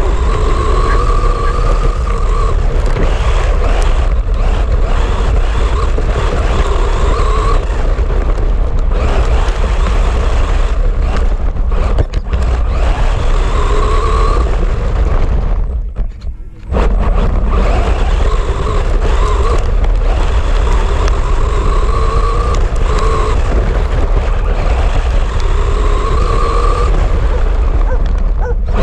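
Electric motor of a WLtoys 4x4 RC car whining, rising and falling in pitch again and again as it speeds up and slows, over a heavy low rumble. The sound drops out briefly about halfway through.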